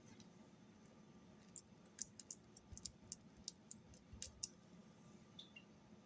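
Faint, light clicks and taps of a utensil, about a dozen scattered over a few seconds, while ricotta cheese is spread over a pizza crust.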